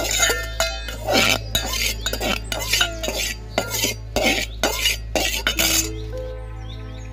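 Small metal spoon stirring and scraping cooked vermicelli in a miniature metal kadhai: a quick run of scrapes and clinks against the pan that stops about six seconds in, leaving soft background music with held notes.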